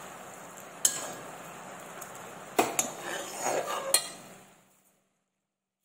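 Steel ladle knocking against a kadai four times while boiling sugar syrup is stirred, over a steady bubbling of the syrup that fades out about four and a half seconds in.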